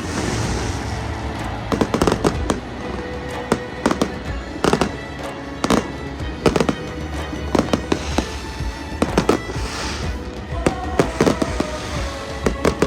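Fireworks going off in an irregular string of sharp bangs, often several within a second, some followed by a brief hiss.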